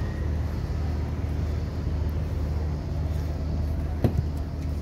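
Boat's engine running with a steady low drone, and a single sharp knock about four seconds in.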